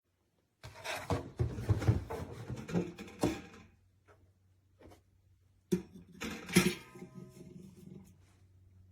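Handling noises: a quick run of clattering knocks and bumps, a pause, then a second cluster of knocks with a brief metallic ring near the middle, followed by a faint low steady hum near the end.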